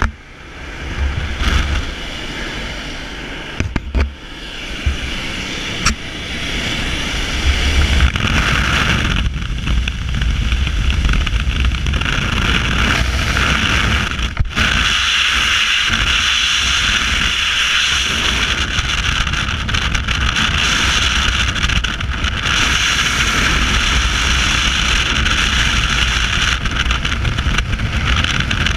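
Wind noise on a helmet-mounted action camera: engine noise and slipstream through the aircraft's open jump door, growing louder about a quarter of the way in as the jumpers move into the door and climb out, then the steady rush of freefall wind.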